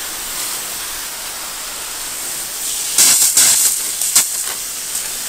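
High-pressure water spray washing down a boat, a steady hiss. About three seconds in it turns louder in uneven surges for a second or so.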